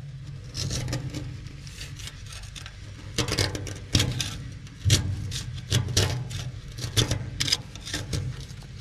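A pointed metal hand tool scraping and picking at hardened resin and rust in the bottom of a steel hull, in irregular short strokes and taps, over a steady low hum.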